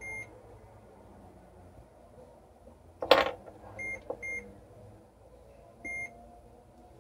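ARB Sargon 4.0 electronic chessboard giving short, high single-tone beeps: one at the start, two quick ones around four seconds and one near six seconds, as moves are entered on the board. A loud wooden knock about three seconds in, with a lighter one just after four seconds, from chess pieces set down on the board.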